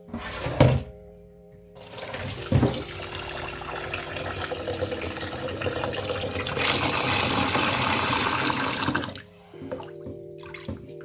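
Tap water running and splashing into a pot of rice as it is rinsed until the water runs clear, strongest shortly before the tap is shut off about nine seconds in. A knock of the pot near the start.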